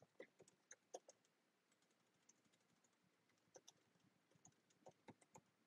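Faint keystrokes on a computer keyboard: a quick run of typing clicks in the first second, a few stray taps, then another run from about three and a half seconds in.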